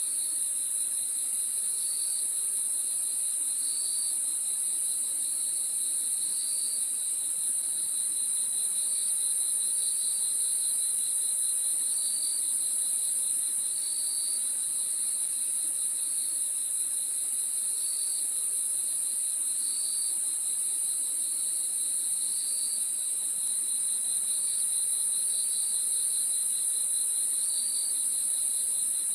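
Crickets chirping in a chorus: a steady high-pitched trill runs throughout, with a lower cricket's pulsed chirp repeating every second or two over it.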